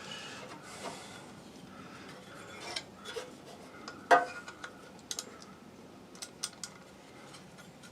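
Small ratchet and socket working a snug propane burner orifice loose in an RV furnace: scattered metallic clicks and light scraping, with one louder clink about four seconds in.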